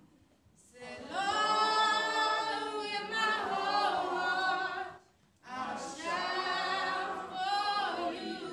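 Unaccompanied worship singing, with no instruments: two long sung phrases with held, wavering notes, each starting after a short pause, one at the very start and one about five seconds in.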